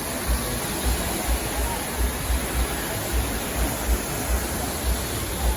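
Wind buffeting the microphone in irregular low thumps over a steady rush of surf.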